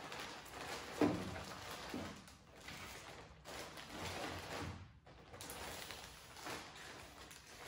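Clear plastic bag crinkling and rustling in irregular bursts as towels are stuffed into it and it is handled.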